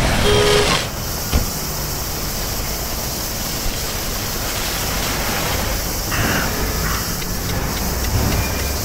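Steady rushing noise, with a short low tone in the first second.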